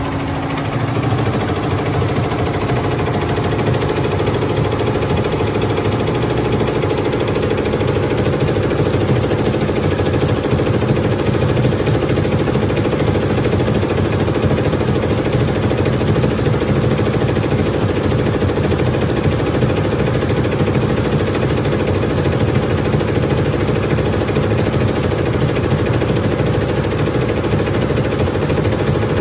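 Multi-head Tajima industrial embroidery machine running steadily, its needles stitching a logo onto t-shirts with an even, fast mechanical rattle.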